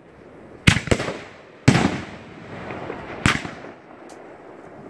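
Aerial firework shells bursting overhead in a string of sharp bangs, each trailing off in a rolling echo: two close together about a second in, a louder one with the longest echo shortly after, another about three seconds in, and one more right at the end.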